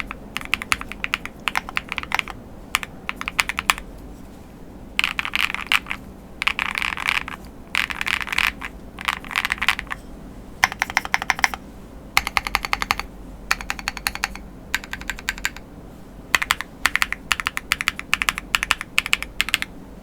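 Typing on a Chilkey Paw65 mechanical keyboard with BSUN Strawberry Bear switches, dye-sub PBT keycaps and its case foams fitted: runs of rapid key clacks in bursts with short pauses between them.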